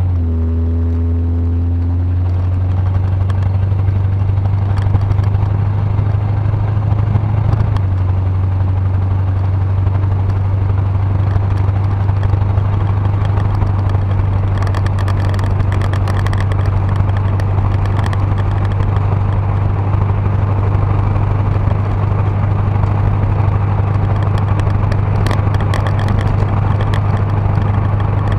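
Ford 351 Windsor V8 of a 1977 Ranchero running steadily as a low drone, on a freshly rebuilt carburetor with a new power valve. A few light clicks come through about halfway and near the end.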